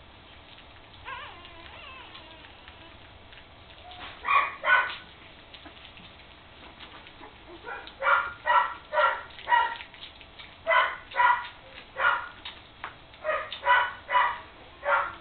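Three-week-old puppies yelping: a faint whine about a second in, two loud yelps about four seconds in, then a string of short, high yelps at roughly two a second from about eight seconds on.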